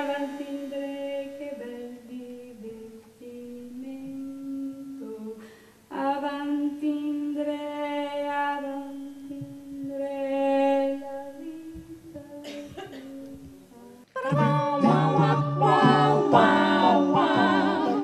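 A single voice singing soft, slow, held notes unaccompanied. About fourteen seconds in, a full a cappella vocal group comes in much louder, with a low bass line under the harmony.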